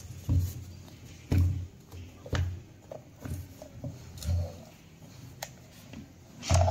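Plastic pump housing parts handled on a table: a series of dull thumps about once a second, each with a light click.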